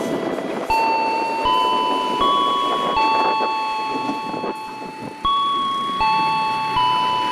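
Railway level-crossing warning chime: a repeating electronic ding-dong of bell-like notes that change pitch every second or so, over the rumble of a passing electric commuter train.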